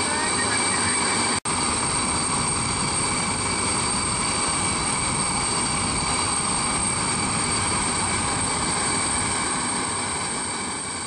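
Steady turbine whine over a loud rushing roar from a parked Antonov An-124 with its turbines running. It drops out for an instant about a second and a half in and fades near the end.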